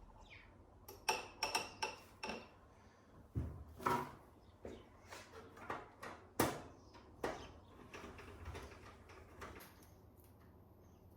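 Irregular clicks, taps and light clatter of computer parts being handled and fitted into a PC case, some with a short metallic ring, with the loudest knock about six and a half seconds in.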